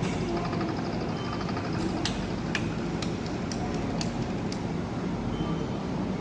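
Steady hum of workshop machinery beside a collaborative welding robot, with a run of six sharp clicks, about two a second, in the middle.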